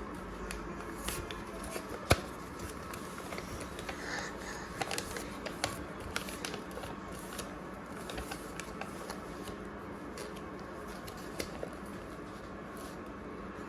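Sheet of paper being handled and creased, giving scattered crinkles and rustles, with one sharp click about two seconds in.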